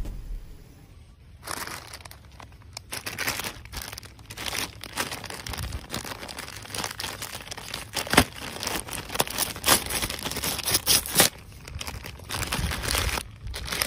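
Thin clear plastic bag crinkling and rustling as hands handle it. The irregular crackles start about a second and a half in, with a few sharper crackles among them.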